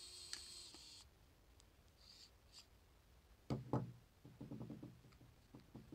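A mini electric screwdriver (MINI ES121) whirring for about a second as it backs a screw out of the water flosser's plastic casing. A few light clicks follow, then two loud knocks about halfway through and a short clatter of knocks as the tool is put down on the wooden table and the parts are handled.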